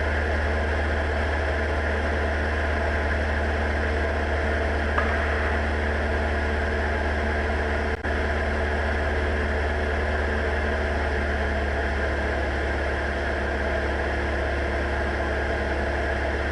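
Steady engine and propeller drone of a Diamond DA40 in cruise flight, level and unchanging, with a faint tick about five seconds in.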